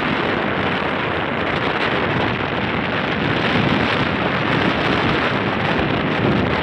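Steady wind noise buffeting the microphone of a moving motorcycle, mixed with the motorcycle's running and tyre noise on the road.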